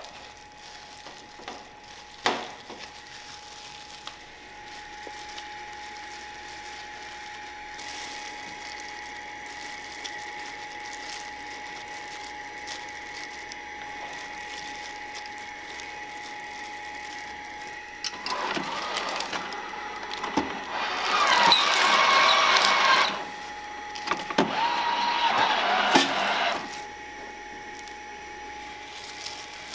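Automatic gimbap rolling machine running in two bursts of several seconds each as it rolls the filled rice and laver sheet into a roll. A steady high hum runs underneath, and there is one sharp click about two seconds in.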